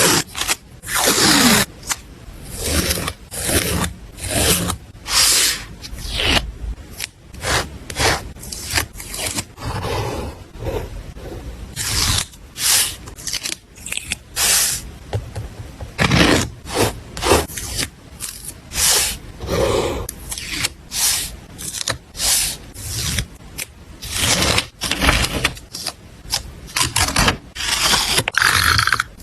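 Paper and stationery handled close to the microphone while making a collage journal spread: a string of short scraping and rustling strokes, unevenly spaced.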